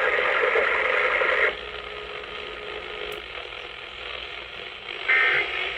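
Weather radio receiver audio carrying the close of a NOAA Emergency Alert System weekly test: radio hiss, louder for the first second and a half. Near the end comes a short buzzy burst of EAS data tones, the end-of-message code that signals the alert is over.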